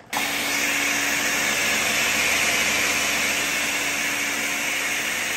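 Countertop blender starting suddenly and running steadily, blending liquid egg whites into a froth: an even motor whir with a low steady hum underneath.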